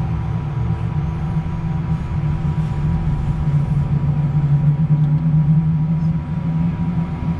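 Business jet's turbofan engine spooling up during its start, heard inside the cockpit: a steady low hum with a thin steady whine above it, swelling slightly partway through as fuel flow and oil pressure come up after ignition.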